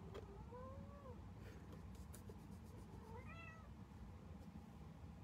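A cat meowing faintly twice: a longer meow about half a second in and a shorter, higher-pitched one about three seconds in.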